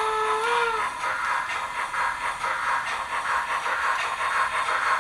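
Model Br 39 steam locomotive's whistle ending with a short upward slide just under a second in. A quick, even rhythmic beat follows as the model train runs past.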